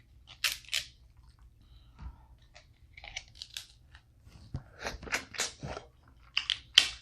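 Close-miked eating of a seafood boil: a series of short crunches and chewing sounds, coming in several quick clusters.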